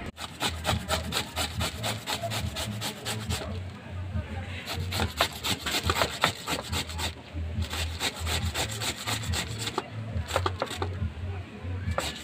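Green papaya being shredded on a small metal grater over a steel bowl: quick, rhythmic rasping strokes, several a second, in runs broken by short pauses.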